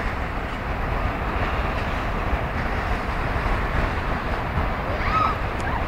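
Steady rushing of turbulent, foaming water below a dam's spillway, a constant deep noise with no breaks.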